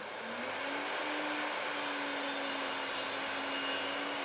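Electric mitre saw running with a steady motor whine, its blade cutting through a laminate-faced chipboard strip from about two seconds in until shortly before the end, when the cut finishes.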